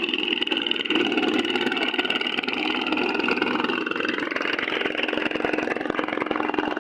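A boat's motor running steadily, its pitch rising a little about four seconds in.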